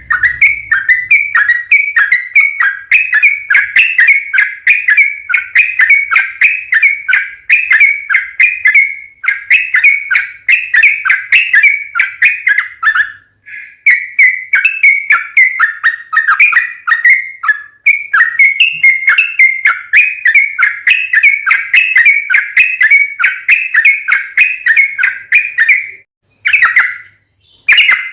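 Yellow-vented bulbul (trucukan) singing long runs of rapid, repeated chirpy notes, several a second. The runs break off briefly a few times, the longest break near the end.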